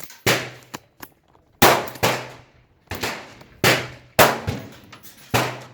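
Gunshots at a shooting range: about six loud, sharp reports at irregular intervals of roughly a second, each trailing off in an echoing tail.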